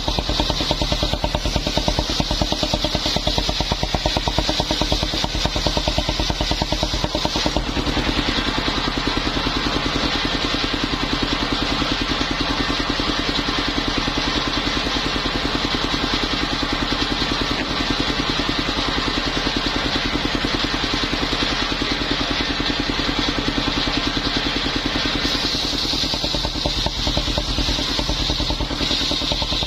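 Engine-driven mobile circular sawmill running steadily, the engine's fast even beat under a high saw whine; the whine weakens and the sound broadens about 8 s in, then the whine comes back strongly near the end.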